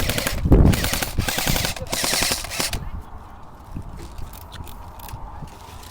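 Airsoft electric guns firing on full auto: several bursts of rapid clicking shots over the first three seconds or so, then only a few scattered shots.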